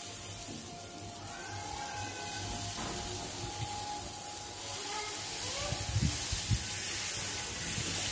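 Dosa batter hissing and sizzling on a hot tawa as it is poured and spread with a ladle, with a few soft knocks about six seconds in. Faint music plays in the background.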